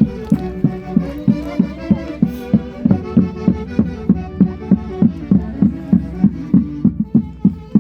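Andean folk orchestra playing a lively dance tune, with a steady beat of about three strong pulses a second under the melody instruments; the beat falters briefly near the end.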